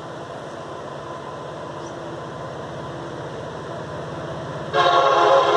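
Approaching freight train's diesel locomotive, its engine rumbling steadily and slowly growing louder. Near the end the locomotive's air horn sounds loudly, a chord of several tones held steady.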